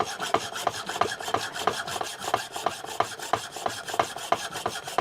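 Fine hand saw blade, lubricated with Burr Life, sawing back and forth through the sprue of a cast badge, in even rasping strokes about three a second.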